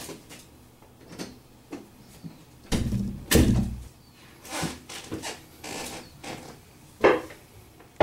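Scattered knocks, bumps and rustles of a person moving about close to the microphone, the loudest a heavy low bump about three seconds in and a sharp knock about seven seconds in.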